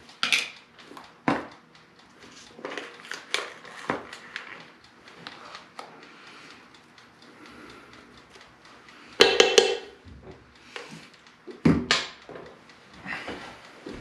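Metal measuring spoon scooping cocoa powder from a tin and clinking against the tin and a steel saucepan, with light scattered taps and a quick run of loud ringing taps about nine seconds in, then a single sharp thump near twelve seconds.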